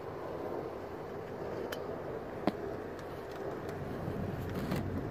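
Light metal clicks of a socket wrench worked on a drive-belt tensioner pulley, the sharpest about two and a half seconds in, over a steady low background hum.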